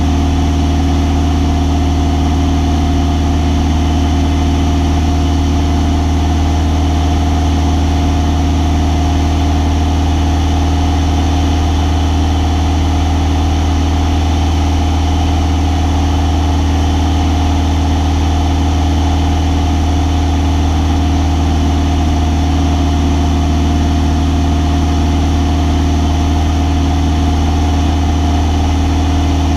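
Single-engine propeller plane's engine and propeller running steadily in flight, heard from inside the cockpit as an even, unchanging drone.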